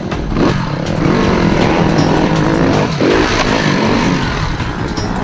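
Enduro dirt bike engine revving in bursts as it climbs over a log obstacle, with two sharp rises in pitch, about half a second and three seconds in, as the rider opens the throttle.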